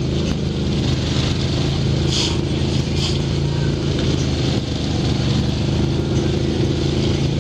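ATV engine running at a steady pace along a dirt trail, with a constant hiss underneath. Two brief louder hisses come about two and three seconds in.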